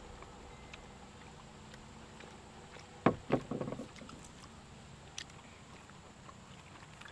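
Quiet outdoor background with a faint steady hum. About three seconds in, two short sharp knocks come close together, followed by a few softer ones, all within under a second.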